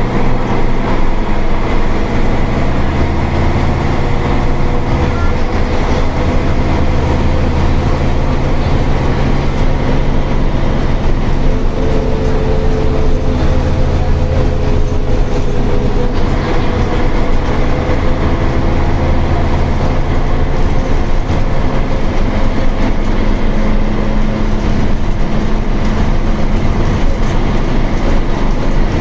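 Karosa ŠM 11 bus's diesel engine running as the bus drives, heard from inside the cabin, with steady road and body noise. The engine note shifts in pitch a few times.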